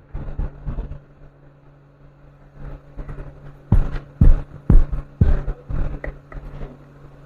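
A series of short knocks and scrapes from hand tools working on a subwoofer amplifier's circuit board. The loudest is a run of about five strokes, each about half a second apart, a little past the middle. A steady low hum runs underneath.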